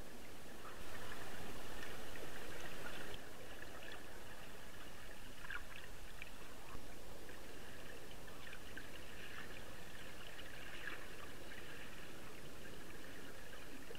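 River water heard through a submerged underwater camera: a steady muffled rush with faint crackles and ticks. It is louder for about two seconds near the start, and there is one sharp click about halfway through.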